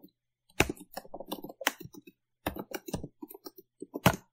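Typing on a computer keyboard: quick runs of key clicks with two short pauses, and a few keys struck harder than the rest.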